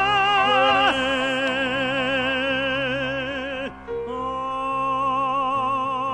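Male operatic singing in a French operetta: long held notes with a wide, even vibrato, one breaking off a little past halfway and a new, slightly higher note taken up and held to the end.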